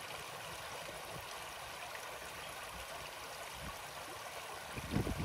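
Small shallow stream running over a stony bed: a steady rush and babble of water. Louder low rumbling comes in just before the end.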